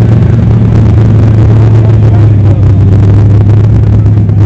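A vehicle's motor running steadily, a loud even drone with no change in pace.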